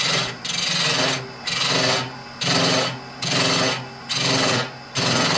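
Hollowing tool with a Simon Hope 6 mm cutter on a bar scraping wood inside a spinning horse chestnut hollow form on the lathe, in repeated cutting strokes about once a second.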